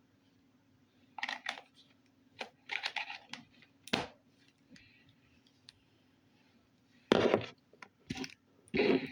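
Slime being squeezed and handled by hand: irregular short squelches and clicks, the loudest about seven seconds in and again near the end.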